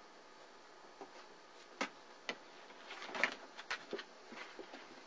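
Four-week-old German Shepherd puppies at play, heard as scattered light clicks and taps, with a denser flurry about three seconds in.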